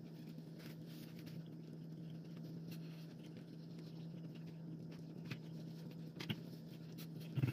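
A person chewing a mouthful of sandwich with mouth closed: soft chewing noises with a few small clicks and one slightly louder knock near the end, over a steady low hum.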